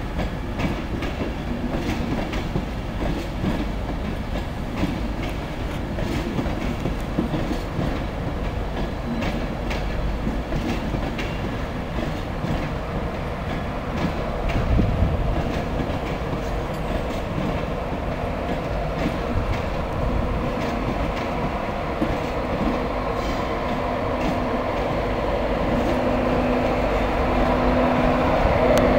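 Mark 4 coaches of a Class 91-hauled set rolling slowly into the platform over pointwork, the wheels clicking and clacking over the rail joints. A low steady hum rises near the end as the Class 91 electric locomotive at the rear draws closer.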